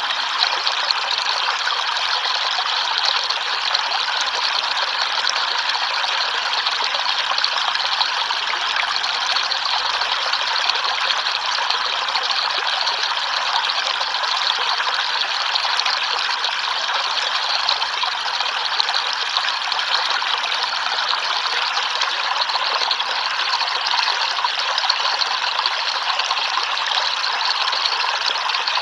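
Running water flowing steadily and without a break.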